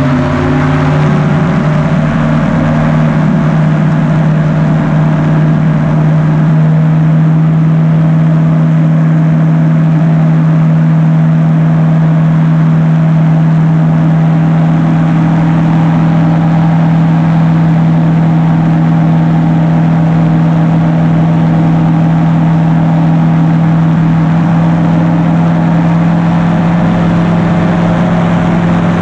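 A powered parachute's engine and pusher propeller run at a steady cruise power, heard from on board as a loud, even drone with the rush of air over the cart.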